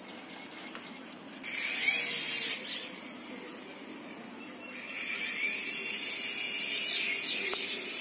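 Syma S107 toy coaxial RC helicopter's small electric rotor motors whining as they spin up, rising in pitch. They run for about a second from about one and a half seconds in, ease off, then spin up again about five seconds in and keep running.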